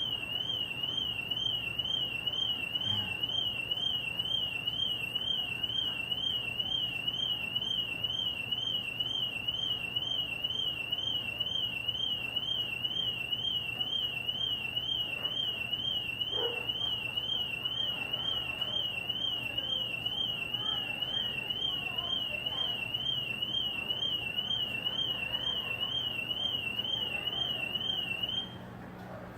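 Car alarm siren sounding a high tone that warbles rapidly up and down without a break for nearly half a minute, then cutting off suddenly near the end. It is a parked car's alarm left going off again and again with no one switching it off.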